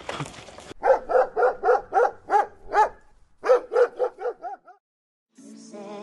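A dog barking rapidly, about four barks a second, in two runs with a short break, the second run fading away. Music starts near the end.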